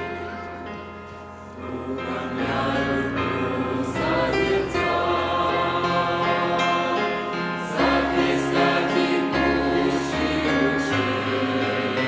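Choir singing a Christian hymn. The singing dips briefly about a second in as the chorus ends, then the next verse begins.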